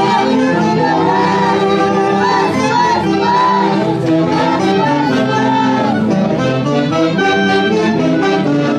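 Live Peruvian Andean orchestra music: a saxophone section carrying a melody in wavering held notes over a dense band accompaniment.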